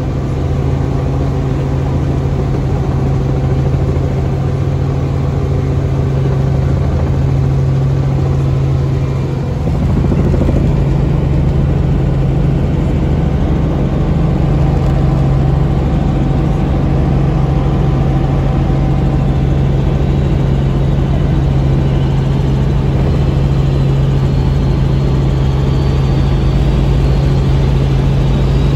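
Helicopter engine and rotor heard from inside the cabin in flight: a steady, loud drone with a strong deep hum, which gets slightly louder and fuller about ten seconds in.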